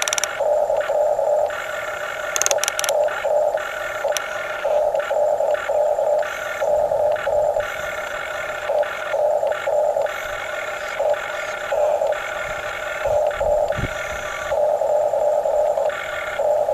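Small electric gear motors of radio-controlled toy construction models whining, starting and stopping in short irregular spurts as the controls are worked, over a steady lower hum.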